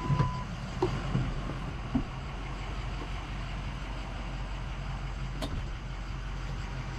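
Ford pickup truck's engine idling steadily, heard from inside the cab, with a few light knocks about one, two and five and a half seconds in.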